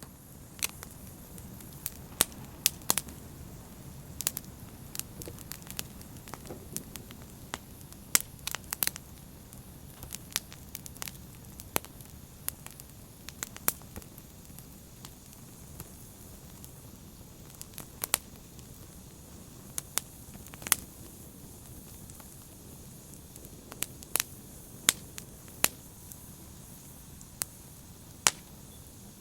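Open fire crackling: a steady low rush of burning with irregular sharp pops and snaps, several of them loud.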